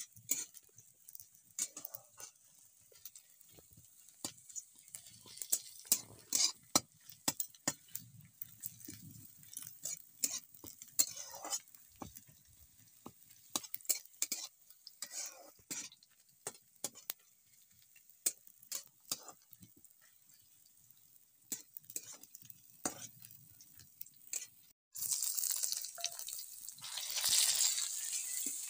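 Scattered clicks and knocks of steel bowls and utensils being handled, then about 25 seconds in food starts sizzling in a hot wok as it is stirred with a spatula, the sizzle growing louder near the end.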